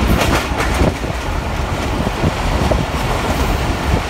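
Passenger train running along the line, heard from aboard a coach: a steady rumble of wheels on the rails, with a quick run of clicks in the first second.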